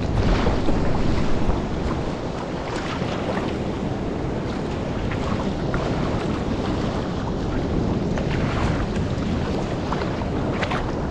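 Wind buffeting the microphone over choppy sea water sloshing and splashing around a sea kayak, with surf breaking on rocks; loudest in the first second or two.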